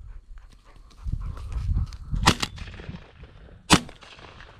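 Two 12-gauge shotgun shots about a second and a half apart, sharp and short, fired at doves passing overhead. A low rustle of movement comes just before the first shot.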